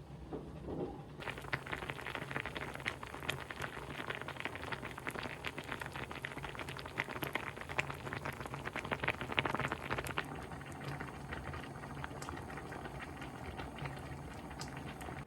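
Tomato sauce cooking in a pot, bubbling with a dense run of small pops and crackles that starts about a second in and eases a little after about ten seconds.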